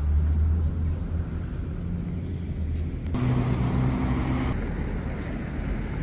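Road traffic: a car engine's low rumble, then, after an abrupt change about three seconds in, broader street noise with a passing vehicle's engine hum.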